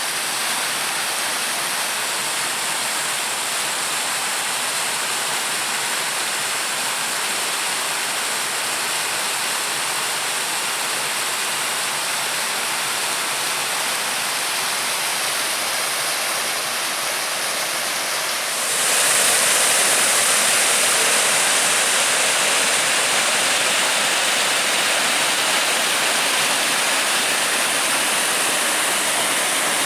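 A small creek waterfall rushing steadily. About two-thirds of the way through, the rush gets suddenly louder and brighter and stays that way.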